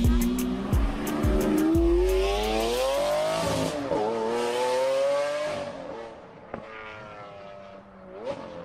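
Car engine sound effect revving, its pitch climbing steadily, dropping about four seconds in, climbing again and then fading away.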